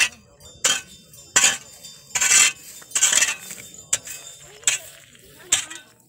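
Metal ritual percussion at a prayer gathering, struck in a slow, steady rhythm of about eight clinks, a little more than one a second. Each clink rings briefly and high.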